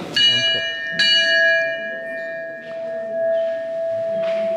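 Brass temple bell struck twice, about a second apart, each strike ringing out with bright overtones over a long, steady hum.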